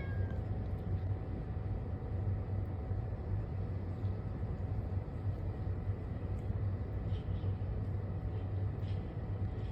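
The tail of a cat's meow, falling in pitch, right at the start, then a steady low background rumble with a few faint ticks about seven and nine seconds in.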